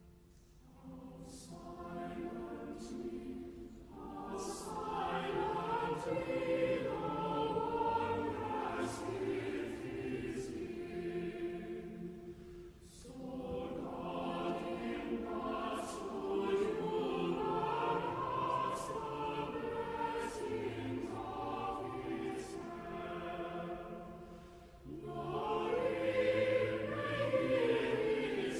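Choir singing in long sustained phrases, with short breaks between phrases twice.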